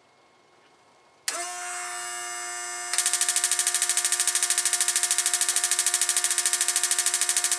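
Start-up of a small gas turbine APU on a test stand: an electric motor whine switches on suddenly about a second in and holds a steady pitch, and about two seconds later a fast, even pulsing buzz joins it.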